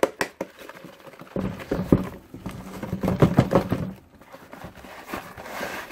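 Cardboard shipping box shaken and knocked against a plastic tub as live dubia roaches are tipped out of it: rattling, scraping and knocking in two bursts, one about a second and a half in and a longer one around three seconds in.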